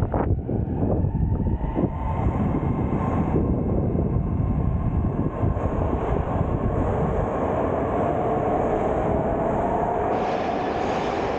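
Metro train running into the station: a steady rumble of wheels on rail, with a motor whine that rises over the second half and a hiss coming in near the end.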